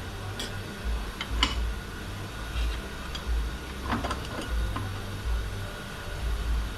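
Light metallic clicks and clinks of Ford AOD automatic transmission parts being handled and pulled apart, several scattered unevenly over the seconds.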